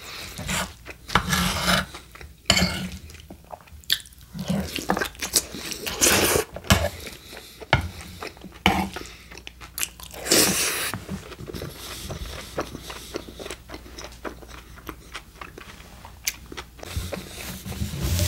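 Close-miked chewing of a mouthful of steak burrito, with wet mouth sounds coming in uneven, irregular bursts.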